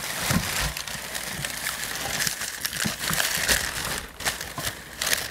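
Crumpled newspaper packing paper rustling and crinkling as it is handled and pulled off wrapped glassware.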